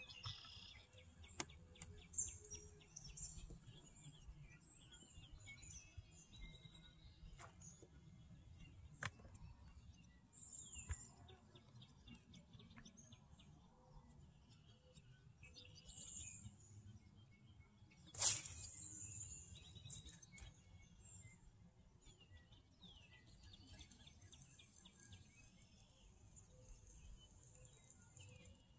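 Birds chirping and singing on and off, faint, over a low steady rumble. There are a few thin clicks and one louder, sharper burst about eighteen seconds in.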